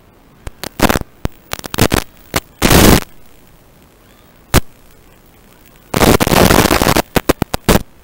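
Loud bursts of static hiss in the audio of analog FPV goggles, cutting in and out abruptly over a low steady hiss: a few short crackles, a half-second burst, a single crack, then a longer burst of about a second followed by quick crackles near the end.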